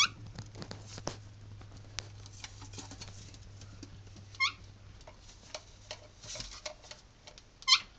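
A pet parrot giving three short calls, about four seconds and then three seconds apart, the last the loudest, with scattered light taps and clicks as it moves about the counter.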